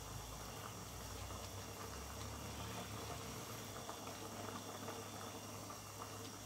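A pot of Thai sour curry (gaeng som) with lotus stems boiling on a gas burner, bubbling steadily, with a low steady hum underneath.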